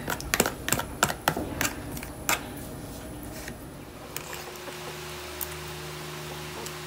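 Metal spoon clicking and scraping against a plastic food tub as puppy mash is stirred, a run of sharp clicks over the first couple of seconds. About four seconds in this gives way to a steady low hum.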